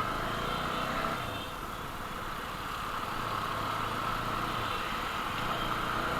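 CFMoto 300NK's single-cylinder engine running steadily, easing off slightly about a second and a half in and then building back up.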